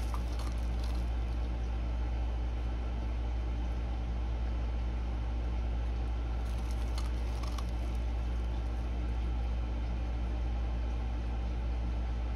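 Steady low machine hum, unchanging throughout, with a few faint light clicks near the start and again about seven seconds in.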